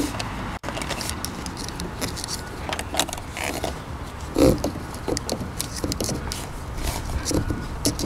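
Black corrugated plastic pipe being handled and pushed onto a PVC pipe fitting: scattered rustles, scrapes and clicks of ribbed plastic, with the light clink of its metal hose clamp.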